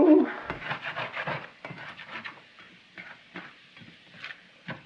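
A spatula scraping and clicking against a stainless steel skillet as diced potatoes are stirred and turned, in irregular strokes that are busier in the first couple of seconds and sparser later.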